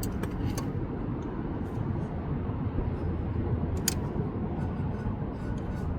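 Steady low background rumble with a few light metallic clicks near the start and a sharper click about four seconds in, as a seal puller pries the old crankshaft pulley seal out of the engine.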